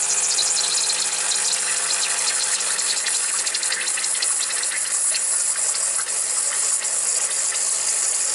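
Bezzera Unica espresso machine's vibratory pump buzzing steadily during a shot, with a strong hiss of water flowing through the group head; it cuts off suddenly near the end.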